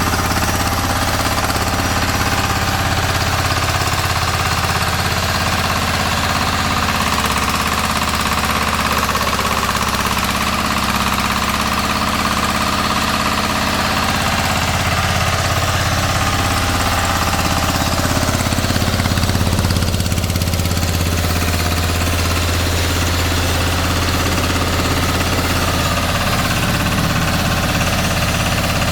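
Vertical flat-die pellet mill running steadily: a constant low mechanical drone with a rattling edge that holds the same level throughout.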